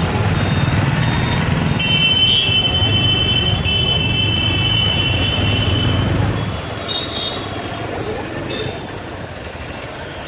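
Busy street traffic heard from a moving vehicle: a steady low rumble of engines and road that eases off a little past halfway. A high steady tone sounds for about four seconds, starting about two seconds in.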